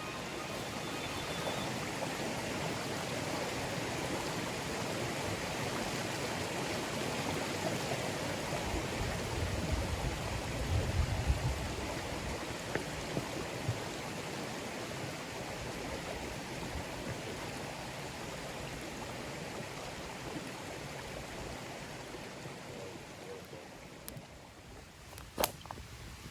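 Steady rush of flowing stream water, with a brief low rumble around the middle and a few sharp clicks near the end.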